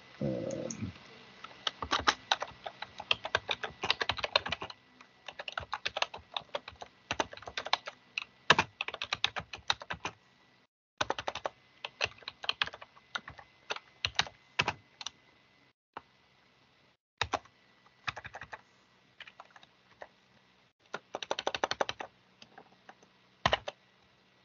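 Typing on a computer keyboard: runs of quick keystrokes broken by short pauses, the busiest runs in the first few seconds and near the end.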